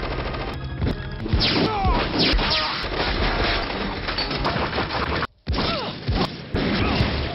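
Action-film soundtrack mix: music under a dense layer of hits and crashes. The sound breaks off abruptly for a moment about five seconds in, then resumes.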